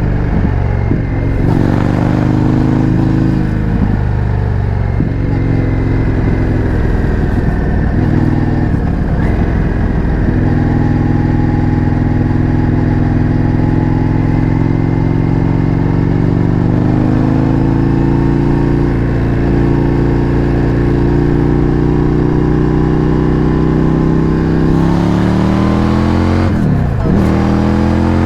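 Indian FTR 1200's V-twin engine running through an Akrapovič exhaust while riding, the engine note changing in steps with gear changes over the first ten seconds, then rising steadily for a long stretch, with a quick drop and pick-up near the end.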